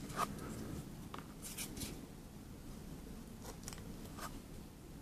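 Faint scattered ticks and light scrapes of small parts being handled, as a guide is removed from a small helmet camera during a repair.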